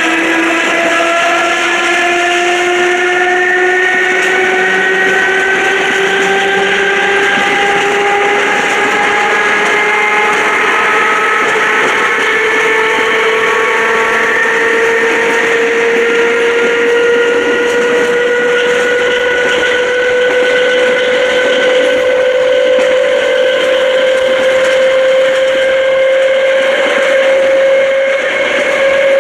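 Electric multiple-unit train's traction motors growling as it pulls away and accelerates: several tones climb slowly and steadily in pitch together, over the rush and rumble of the moving train.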